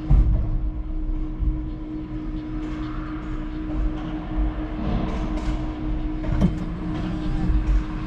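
Steady machine hum over a low rumble, with a few light metallic clicks and one sharper ringing metal clank about six and a half seconds in as a curtainsider trailer's curtain pole and strap fittings are handled.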